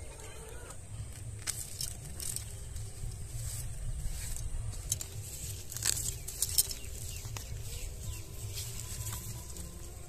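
Dry onion leaves and crumbly soil rustling and crackling as onions are pulled up by hand, in scattered short crackles over a steady low rumble.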